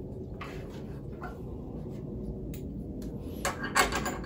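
Low steady room hum with a few faint taps, then metal clinking and rattling near the end as a steel extension rail and its carriage bolt are fitted to a bench-grinder sharpening jig.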